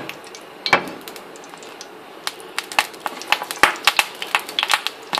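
Sliced garlic cloves frying in hot oil for a tadka, the oil crackling and spitting in quick, irregular pops that start about two seconds in and grow denser. A single knock comes just under a second in.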